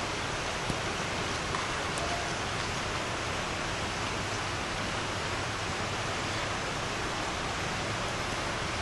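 Steady, even hiss with no distinct events apart from a faint tick or two.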